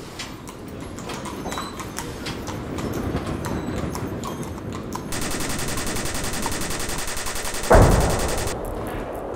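Sound-design effects: scattered clicks over a swelling noise, then a fast, even rattle like automatic gunfire from about five seconds in, with a loud low boom near the end that dies away.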